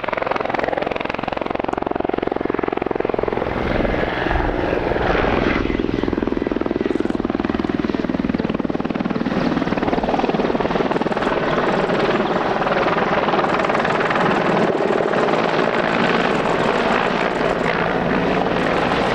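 Mi-24P Hind attack helicopter flying a display: its twin turboshaft engines and the rapid beat of its main rotor, loud and continuous.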